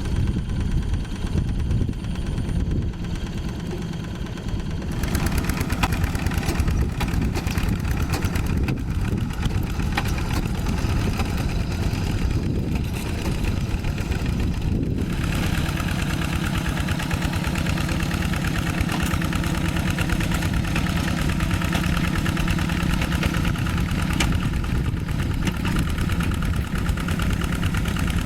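Two-wheel hand tractor's single-cylinder diesel engine running steadily as it ploughs. The sound changes abruptly about five seconds in and again about fifteen seconds in, after which a steadier engine note holds.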